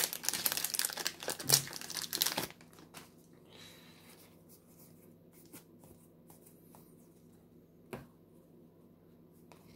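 Plastic wrapper of a Magic: The Gathering booster pack torn open and crinkled for about two and a half seconds. Then only faint rustles of cards being handled, with one short tap about eight seconds in.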